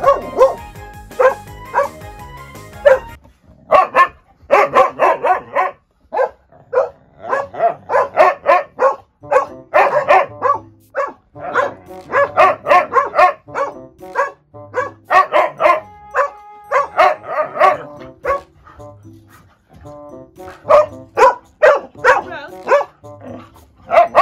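Several large dogs barking in rapid, excited volleys at their owner's face mask, with short pauses between the volleys. Light background music plays underneath.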